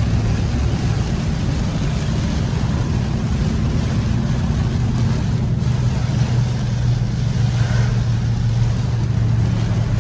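Inside a car driving through heavy rain: a steady low drone of engine and road under a constant hiss of rain on the glass and tyres on the wet road.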